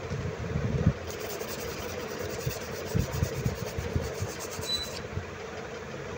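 A toothbrush scrubbing a Huawei Mate 10 Lite logic board that is wet with liquid, in irregular scratchy strokes with some handling knocks, over a steady low background hum.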